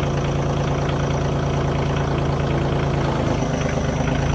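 A vehicle engine idling steadily with an even hum.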